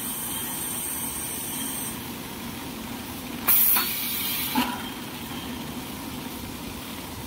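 Towel paper folding machine running with a steady hum and hiss. About three and a half seconds in comes a loud hiss lasting about a second, ending with a short knock.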